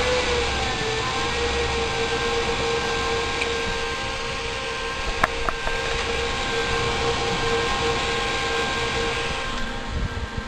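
Server cooling fans running at full speed after power-on: a steady high whine over a rush of air, easing off near the end. A couple of sharp clicks about five seconds in. The server is powering up but won't start.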